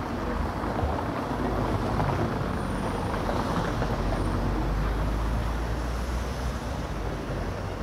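Street traffic: a motor vehicle's low rumble building about two seconds in and easing off near the end, over steady road noise.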